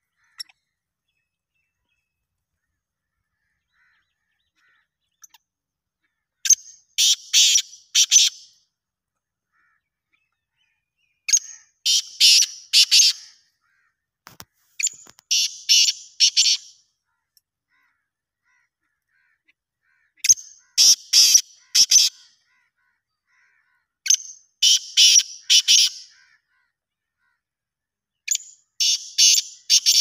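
Black francolin calling: a short phrase of several quick, rasping notes, given six times at intervals of about four to five seconds.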